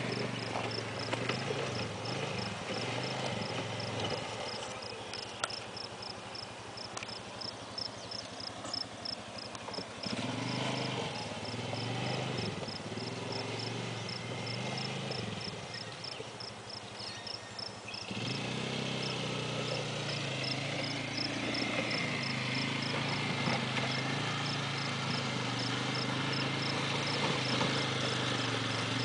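ATV engine running at a distance, its note rising and falling with the throttle and growing louder about 18 seconds in as the quad comes closer. A high chirp repeats about twice a second throughout.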